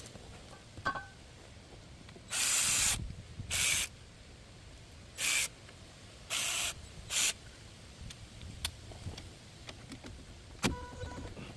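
Aerosol brake cleaner sprayed from a can in five short hissing bursts, the first two longest, cleaning oil and residue off brake parts. A light metallic clink follows near the end.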